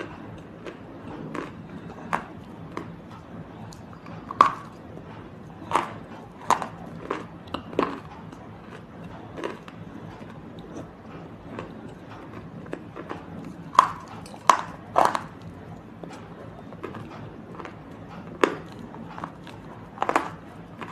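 Crisp crunching bites of a brittle material being bitten and chewed close to the microphone, about a dozen sharp snaps at irregular intervals, the loudest around four and fourteen seconds in. A steady low hum sits underneath.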